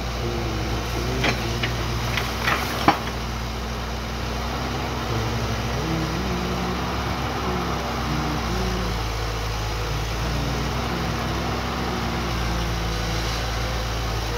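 Tracked hydraulic excavator running steadily under work, its diesel engine and hydraulics shifting pitch up and down as the boom and bucket move. A few sharp knocks in the first three seconds.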